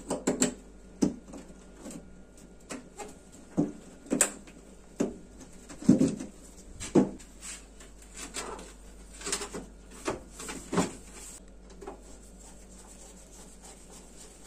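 Gloved hands handling and refitting a dishwasher's sheet-metal side panel and base parts: irregular knocks, rubs and clatters of metal and plastic, sparser after about eleven seconds.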